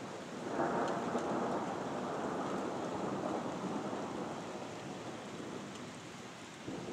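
Thunder rolling over steady rain: a long rumble swells about half a second in and slowly dies away, and a second rumble begins near the end.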